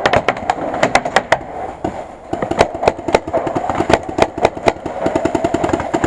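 Paintball markers firing: a string of sharp pops, quickening about four and a half seconds in to a rapid run of roughly ten shots a second, over a steady hum.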